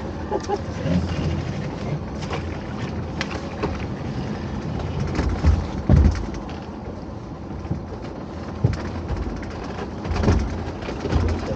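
Small fishing boat's engine running steadily, with scattered knocks and clunks and heavier low thumps about six seconds in and again near ten seconds.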